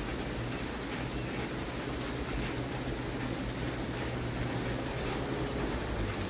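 Steady outdoor background noise, an even hiss with a low hum underneath and no distinct events.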